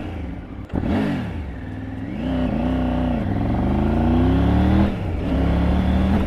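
Triumph Tiger 900 GT's 900 cc inline-three engine accelerating hard through the gears. The revs climb, then drop sharply at upshifts about three and five seconds in, and rise again.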